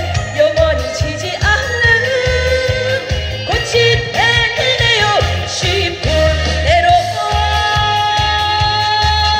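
Trot song playing through a PA during a break between verses: a melodic lead line of held notes with vibrato over a steady bass beat.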